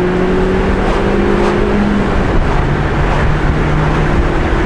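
Vauxhall Corsa C's 90 hp four-cylinder petrol engine, on its standard air filter, heard from inside the cabin while pulling hard in second gear. The engine note climbs over the first two seconds, breaks off, then comes back at a lower pitch as the revs fall. Steady tyre and road noise runs underneath.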